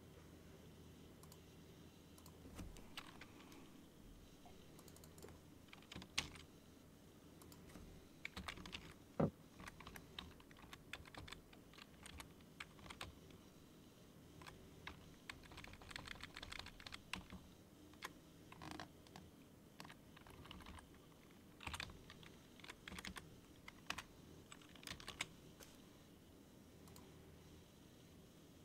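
Faint typing on a computer keyboard: irregular runs of key clicks with short pauses between them, over a faint steady low hum.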